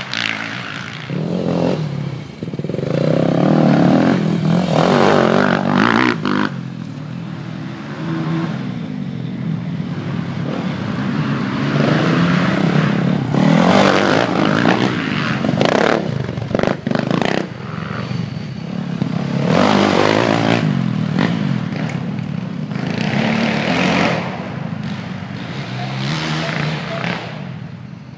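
Enduro dirt bike engines revving as riders pass close by, the engine note rising and falling with throttle and swelling several times as bikes go past.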